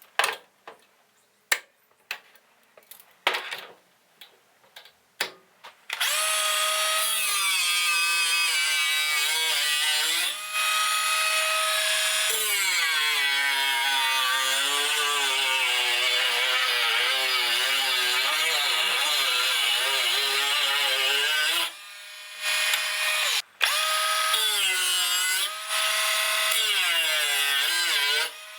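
A few scattered knocks and taps, then about six seconds in a power tool starts working a piece of 1084 carbon steel, its motor pitch dipping and recovering as it is loaded, with a few brief stops near the end.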